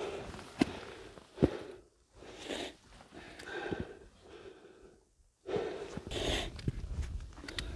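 A hiker scrambling up steep rock breathes heavily, with a loud breath every second or so. There are a few sharp knocks of hands, boots or camera against the rock.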